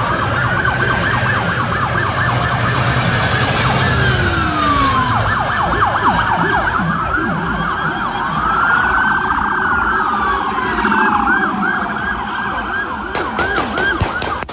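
Several police car sirens sounding at once: long rising-and-falling wails overlap fast repeated yelps. A quick run of sharp cracks comes near the end.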